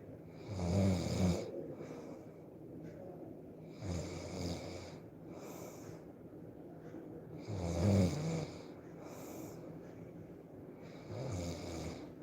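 A person snoring in their sleep: four low snores about three and a half seconds apart, with softer breathing between them.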